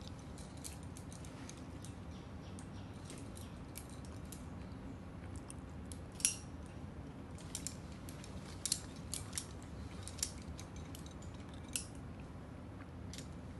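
Irregular sharp metallic clicks and ticks of climbing gear, rope and carabiners being handled, over a steady low background hum. The loudest click comes about six seconds in, and a cluster follows a couple of seconds later.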